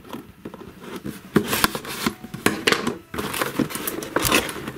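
Hands opening the end flap of a cardboard Play-Doh set box, with irregular scraping and rustling of the cardboard that gets busier about a second and a half in.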